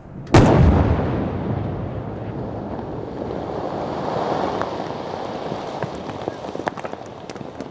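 Controlled demolition of a buried 270 mm WWII artillery shell, about 40 kg of explosive, set off by a counter-mining charge under sand: a single very loud blast about half a second in, then a long rumble and hiss of sand and debris raining back down, slowly fading. A few sharp ticks near the end.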